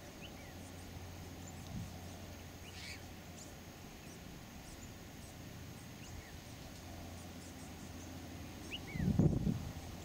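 Faint, scattered short bird chirps, a few falling in pitch, over a steady low outdoor background rumble. About nine seconds in comes a brief, louder burst of low rumbling noise.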